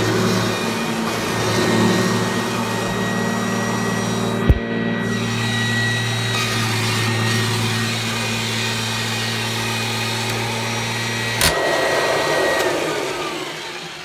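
1997 Kirby G5 upright vacuum cleaner with a metal fan running steadily, a high whine over a low hum, with a sharp click about four and a half seconds in. Near the end a click comes as the motor shuts off, and the whine falls in pitch as the fan spins down.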